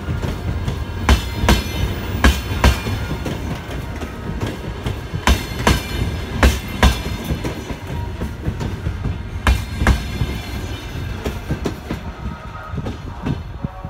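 Passenger train coaches rolling past, their wheels knocking over a rail joint in pairs of clacks as each bogie's two axles cross it, over a steady rumble of the running gear. The pairs come every second or few seconds, and the knocks thin out near the end as the last coach goes by.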